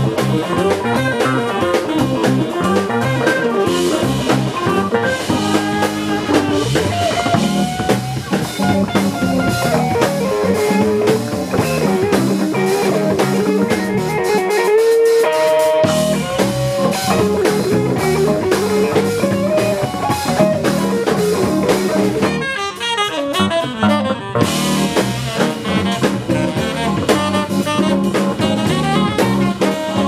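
Live band music: drum kit and guitar playing a blues-style groove in an instrumental passage, with no singing.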